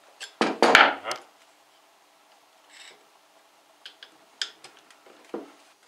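Screwdriver prying a plastic gear off a steel shaft in a milling-machine gearbox. There is a loud scrape with a sharp clunk about half a second in, then scattered light clicks and scrapes as the gear is worked loose.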